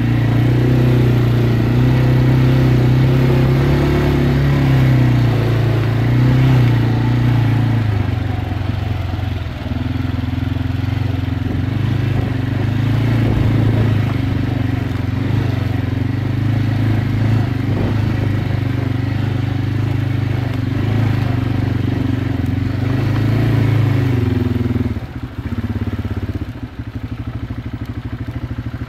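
Quad bike (ATV) engine running under throttle on a dirt track, its note rising and falling as the rider works the throttle. About 25 seconds in it drops to a lower, quieter note.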